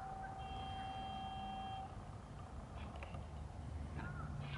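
A vehicle horn sounds once, a single steady note held for about two seconds and ending near the middle, over the low, steady running of a Peterbilt truck's diesel engine as it pulls a railcar along the tracks.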